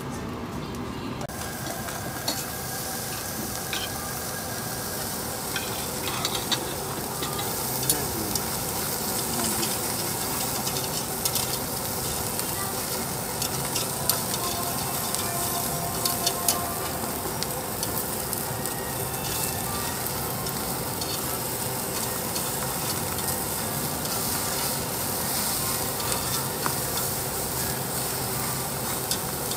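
Slices of meat sizzling steadily on a tabletop yakiniku grill, with scattered light clicks of metal tongs turning them.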